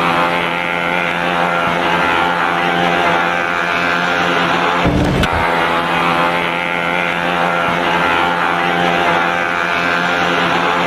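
A ship's horn sounding a long, steady blast of several pitches at once. It breaks off briefly about five seconds in, then sounds again at the same pitch.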